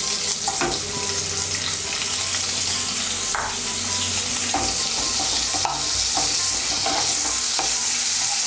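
Chopped onion sizzling as it fries in hot mustard oil in a kadai. A spatula stirring it scrapes and taps the pan every second or so.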